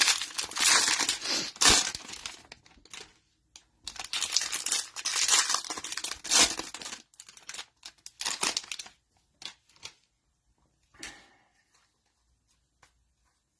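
Plastic cello wrapper on a pack of trading cards being torn open and crinkled in several rough bursts, with the handling dying away near the end.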